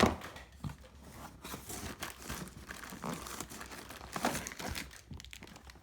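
Packaging crinkling and rustling in irregular bursts as it is handled and pulled off, unwrapping a lathe's power supply.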